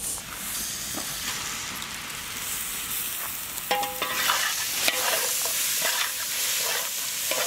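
Sliced onions and dry coconut sizzling steadily in hot oil in a large metal pot, as a metal ladle stirs in ginger-garlic paste, chilli powder and turmeric, with occasional clicks and scrapes of the ladle on the pot.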